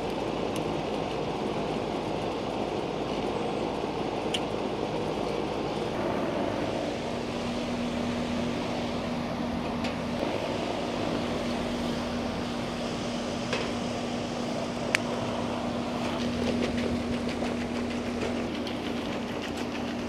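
Goodman air-conditioner condensing unit running steadily, its compressor and condenser fan going again on a new capacitor and contactor. A steady hum joins in about seven seconds in, and there are a few sharp ticks.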